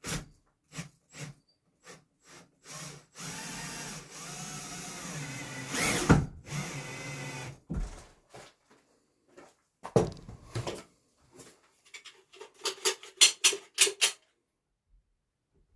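A cordless drill driving a self-tapping screw through wood into the aluminum frame: some knocks and clicks, a steady run of about four seconds that swells briefly near its end, then a quick series of short trigger bursts as the screw is snugged down.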